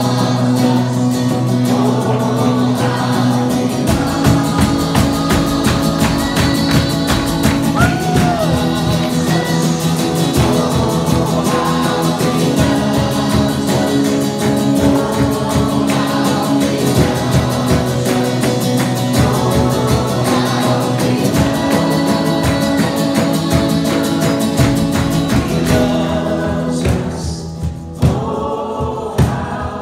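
Live worship song sung by a small group of men's and women's voices in harmony, over acoustic guitar strumming and a cajón beat. The accompaniment thins out near the end.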